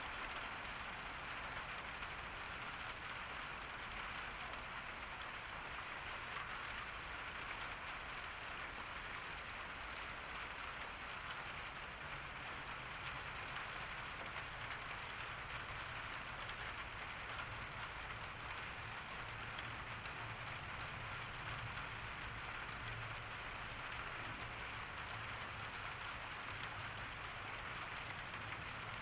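Steady rain falling on a garden, an even, unbroken patter of drops with no letting up or building.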